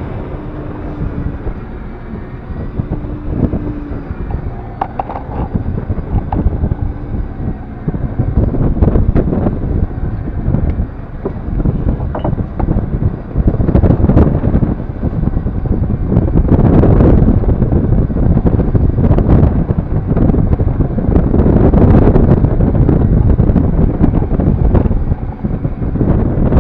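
Gusty wind buffeting the microphone on an open boat at sea, growing louder about eight seconds in and staying strong in surges.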